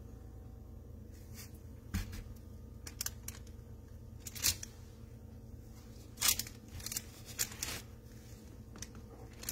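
Scattered light taps, clicks and rustles of handling as gloved hands dip strawberries in a glass cup of melted chocolate and set them down on a tray, over a faint steady hum. The loudest clicks come about halfway through and again a little later.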